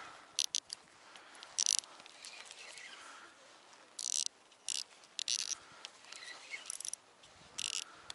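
Spinning reel's drag ratcheting in about nine short, irregular high-pitched bursts as a hooked fish pulls against the line while it is played in.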